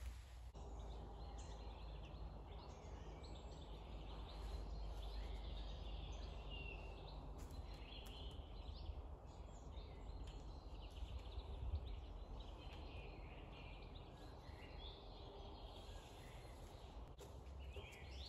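Woodland ambience: small birds chirping and calling on and off over a steady low background hum. One dull thump about two-thirds of the way through.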